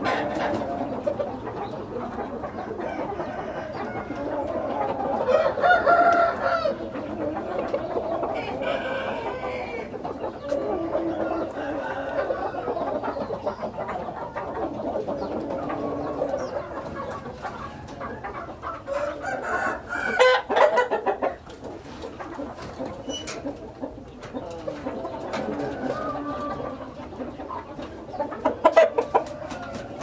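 Roosters crowing and chickens clucking, the calls overlapping with hardly a break. The loudest crows come about five seconds in, about twenty seconds in and near the end.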